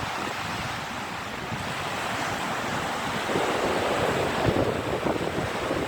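Rough sea surf breaking and washing up a sandy beach, growing a little louder about halfway, with strong wind rumbling on the microphone.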